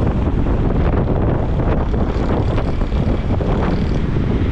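Wind buffeting the microphone on a fast open-air ride along a road, with a vehicle's engine and road noise underneath.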